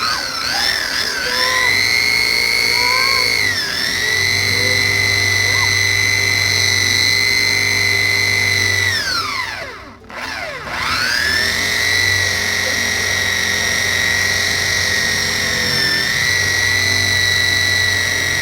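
Electric buffer-polisher motor whining at speed while buffing rubbing compound on a car's paint. It winds down to a stop about halfway through, spins back up and runs steadily again.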